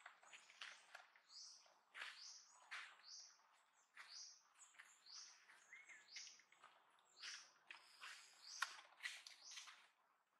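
Faint, high-pitched chirping calls repeated every half second or so, with a few brief sharp clicks among them.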